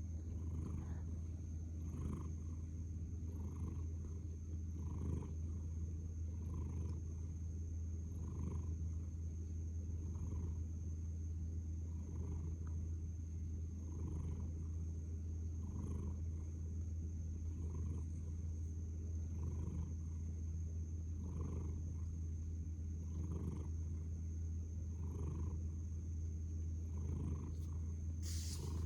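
Sleeping munchkin cat snoring softly and steadily, one breath about every two seconds, over a steady low hum.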